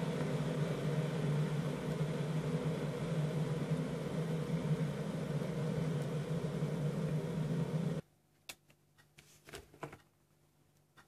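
Steady electric hum of a running kitchen appliance, which cuts off abruptly about eight seconds in, leaving a few light clicks and knocks.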